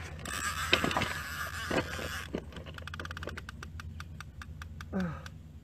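About two seconds of rustling hiss, then a spinning fishing reel clicking rapidly, about eight clicks a second, for nearly three seconds while a hooked fish is fought on a bent rod.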